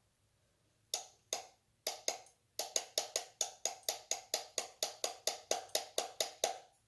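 Fire alarm horn giving short blasts as its power is switched on and off by hand. After a few single blasts the horn settles into a quick, even run of about five blasts a second, an attempt at fast-march coding.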